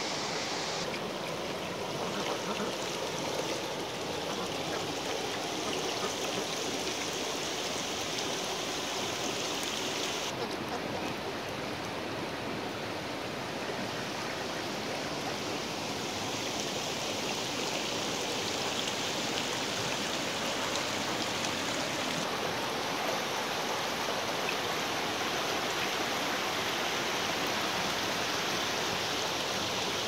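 Shallow river running over stones and gravel: a steady rush of water.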